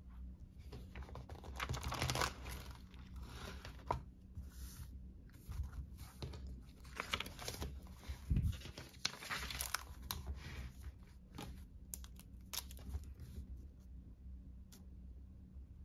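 Paper rustling and crinkling as a spiral-bound notebook is opened and its pages are turned and handled, in a few separate rustles with scattered light clicks and taps.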